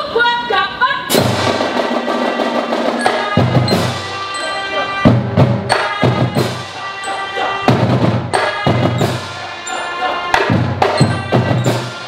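A melodica marching band playing: a few opening notes, then about a second in the full band enters, melodicas and mallet keyboards carrying the tune over snare drums and a bass drum beating steadily.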